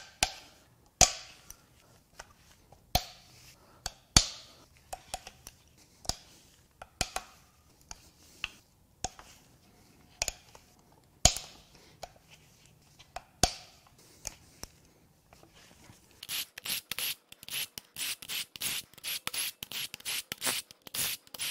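Hand ratchet with an extension and socket loosening the cam housing bolts on a Chevrolet Cruze 2.0L LUZ turbo diesel head. Each bolt breaks loose with a sharp metallic crack, spaced a second or two apart. About 16 seconds in it turns to rapid ratchet clicking as the loosened bolts are spun out.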